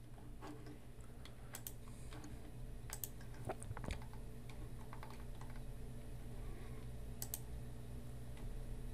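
Faint, scattered clicks from a computer keyboard and mouse, over a low steady hum.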